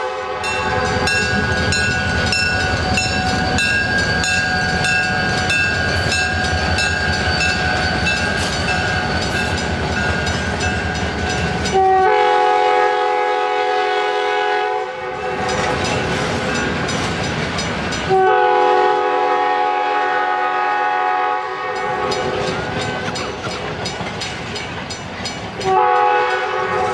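Locomotive 216 passing with a heavy rumble and wheel clatter while its horn sounds a steady chord. Once the rumble fades, the horn gives three more blasts, two long ones of about three seconds and a shorter one near the end: a grade-crossing warning.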